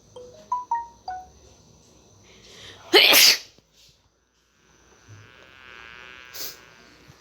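A series of animal sounds: a few short high chirps in the first second or so, a loud short burst of breath-like noise about three seconds in, then a quavering, wavering call near the end.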